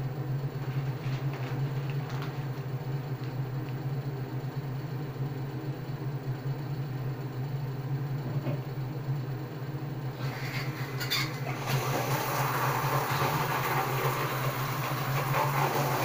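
A steady low hum from a small motor or appliance. About ten seconds in, a louder, even hiss joins it.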